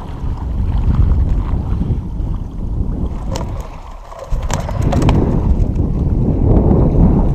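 Wind buffeting the camera microphone: a heavy, gusting rumble that drops away briefly about halfway through, with a few light clicks near the middle.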